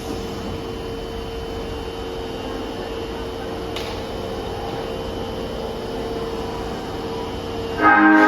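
Steady hum of a subway train's equipment and the station around it, with a held mid-pitched tone, on an underground platform. Near the end a loud bell-like station chime starts ringing.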